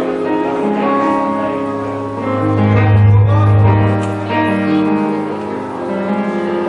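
Keyboard playing slow, held chords, with a deep bass note swelling about two and a half seconds in and fading a second and a half later.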